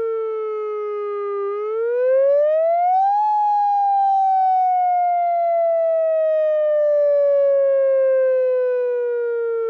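UltraVoice electronic outdoor warning siren sounding a wail. Its steady tone falls slowly, rises quickly about a second and a half in, then sinks in one long slow fall.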